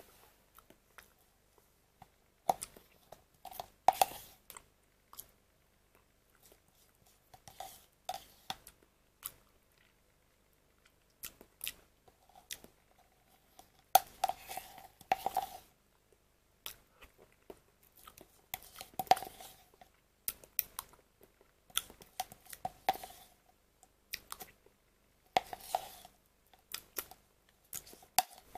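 A metal spoon scraping and knocking inside a nearly empty plastic pudding cup, in short irregular bouts of sharp clicks and scrapes.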